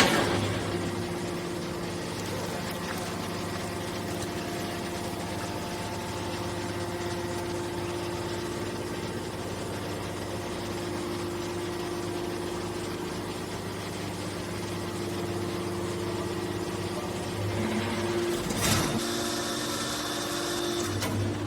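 Hydraulic can baler's electric motor and pump running with a steady hum, with a brief louder burst of noise near the end.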